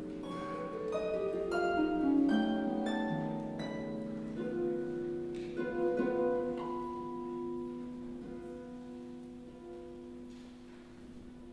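Solo on a Venera Grand Concert 47-string pedal harp: a quick succession of plucked notes in the first few seconds, then fewer notes left ringing and slowly dying away, the playing growing quieter toward the end.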